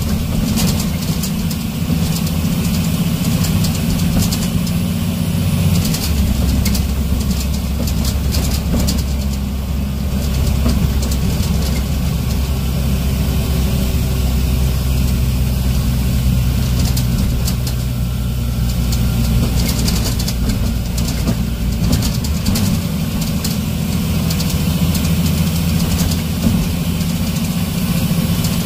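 Scania N94UB single-deck bus engine running while the bus drives, heard from inside the passenger saloon: a steady low drone whose pitch shifts about six seconds in and a few more times, with road noise and light rattles from the body.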